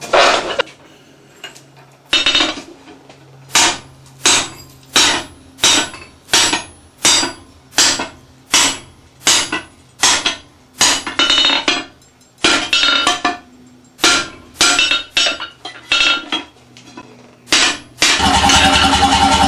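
Hand hammer striking hot steel on an anvil: a single blow, a short pause, then a long run of sharp metallic strikes at a steady pace of a little over one a second. Music comes in near the end.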